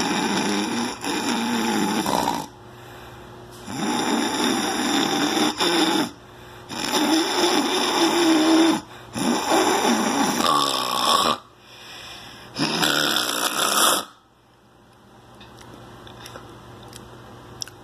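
A man snoring loudly: about five long snores, each lasting two seconds or so with short breaks between them, then a quieter stretch near the end.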